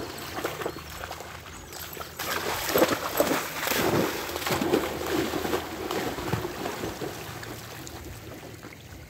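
A dog bounding through shallow water, splashing heavily, then swimming. The splashing is loudest from about two seconds in and eases off near the end as she swims.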